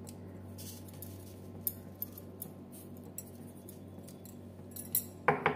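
A spoon scooping salt from a small container and sprinkling it over raw chicken in a steel bowl, with light clicks and clinks over a steady low hum. There is a louder brief sound near the end.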